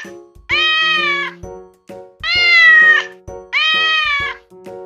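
Domestic cat meowing three times, each meow just under a second long, with the tail of another meow at the very start.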